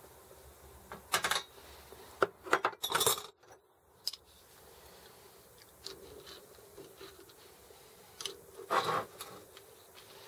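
Steel parts of a Sturmey-Archer S5C internal gear hub and metal hand tools clinking and clattering as the hub is taken apart with a rod and pliers. A few short clatters about a second in, a denser run of clinks around two to three seconds in, and another burst near nine seconds.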